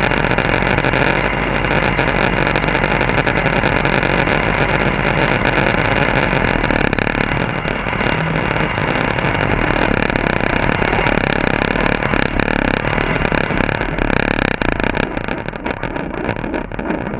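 Farm tractor engine running steadily through a short chrome vertical exhaust stack as the tractor drives along; it eases off a little near the end.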